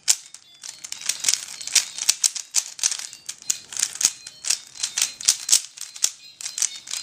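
Dayan LunHui 3x3 speedcube being turned fast during a solve: a dense, irregular run of quick plastic clicks and clacks, several a second.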